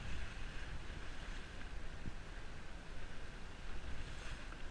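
Small sailboat under way in choppy water: a steady rush of water along the hull and spray, with wind buffeting the microphone.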